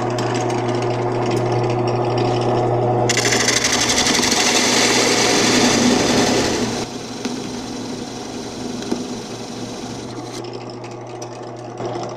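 Benchtop drill press running with a steady motor hum while its Forstner bit bores a concealed-hinge cup hole into a melamine board. The cutting is loudest and harshest from about three seconds in to about seven seconds, then eases to a lighter cutting sound while the motor keeps running.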